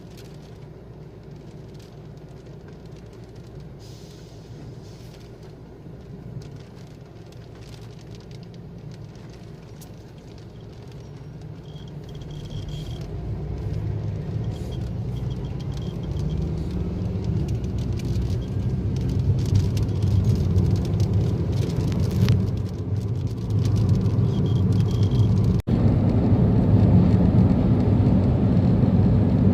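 Low, steady road and engine rumble of a moving vehicle, heard from inside it, growing clearly louder about halfway through.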